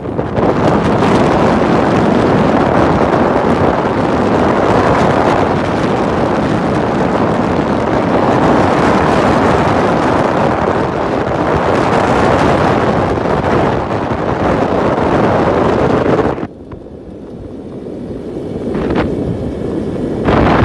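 Steady, loud wind noise buffeting the microphone, which drops off suddenly about sixteen seconds in and then slowly builds again.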